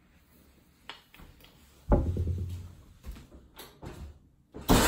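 Scattered household knocks and thumps: a few light clicks, with a loud low thump and short rumble about two seconds in and another loud thump near the end.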